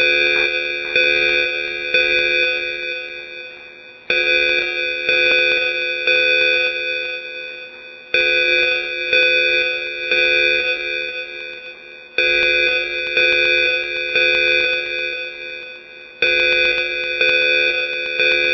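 Evacuation alarm chime sounding a repeating pattern: three bell-like strikes about a second apart, left to ring and fade, the group starting again every four seconds.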